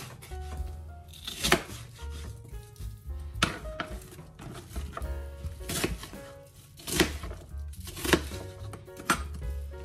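Background music with a steady bass, over a knife chopping onions on a cutting board in sharp single strikes every second or two.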